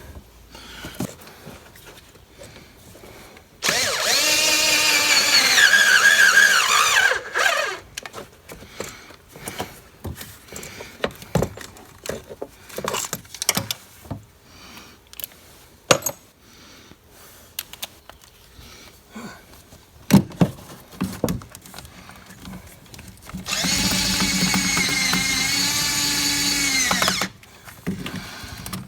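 A cordless power driver runs in two bursts of about four seconds each, one near the start and one near the end, its motor whine dipping and rising under load as it runs down valve-cover bolts. Between the bursts there are scattered clicks and clatter of sockets and parts being handled.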